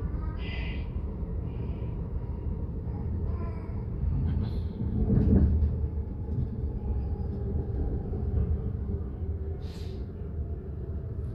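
Inside an SBB S20 regional train carriage, the steady low rumble of the train running on the rails swells about five seconds in, with a few brief high-pitched sounds above it.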